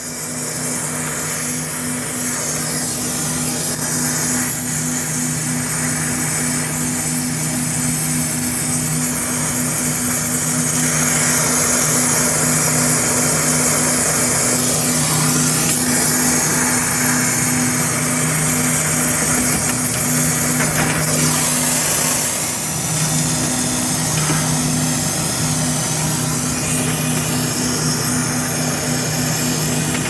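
Brazing torch flame hissing steadily while it heats a refrigeration filter drier's brazed copper joint to unsweat it for removal, with a steady low hum underneath.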